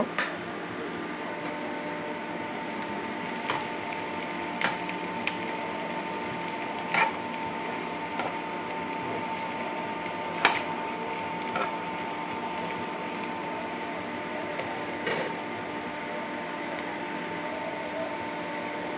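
Sliced onions sizzling in ghee in a frying pan as they are browned for fried rice, nearly browned by now. A spatula knocks against the pan now and then, over a steady hum.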